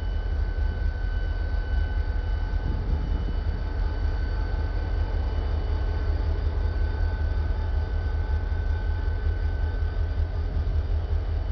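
Six-axle diesel-electric locomotive passing close by, its engine giving a steady deep rumble with a thin high whine over it.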